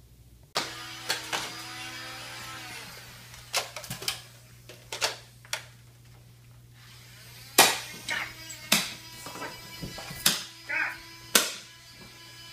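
Four sharp blasts about a second apart from a CO2-powered, solenoid-valve foam-dart shotgun firing semi-automatically, the first the loudest, after a few quieter clicks and knocks. A steady hum runs underneath.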